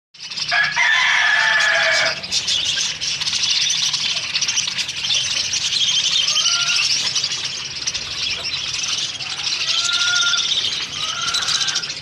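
Dense, continuous chatter of a large flock of budgerigars crowding together to feed, with wing flapping. A longer, lower call with a falling end stands out from about half a second to two seconds in.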